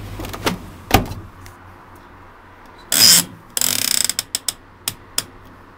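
Timer dial of a Hotpoint tumble dryer being turned, giving single clicks, a louder scraping burst about three seconds in, then a quick run of ratcheting clicks followed by a few single ones.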